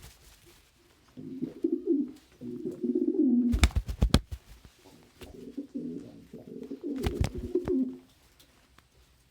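Domestic pigeons cooing in two bouts, each a couple of seconds long. A quick run of sharp claps comes about four seconds in and again about seven seconds in.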